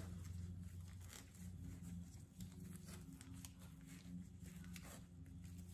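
A rigid sponge being cut into a piece, heard as faint scratchy tearing sounds over a steady low hum.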